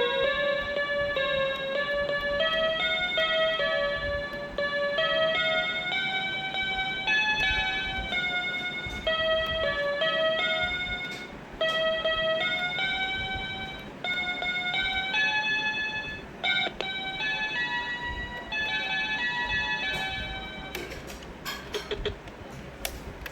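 A simple melody played in clear single notes with a steady pulse. A few sharp clicks come near the end.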